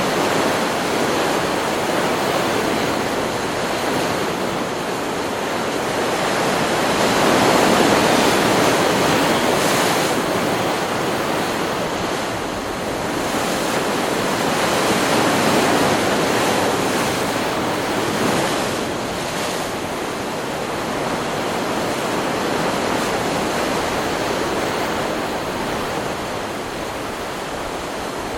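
Ocean surf: waves breaking and washing up a beach in a continuous rush. It swells to louder peaks about eight and fifteen seconds in, then ebbs.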